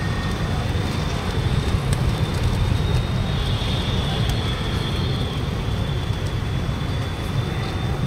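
Steady low rumble of city street traffic, mixed with the wings of a flock of feral rock pigeons flapping close by.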